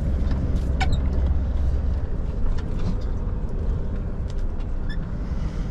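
Scania V8 truck engine running, heard from inside the cab, its low rumble easing off about two seconds in as the truck slows to a stop, with a few light clicks over it.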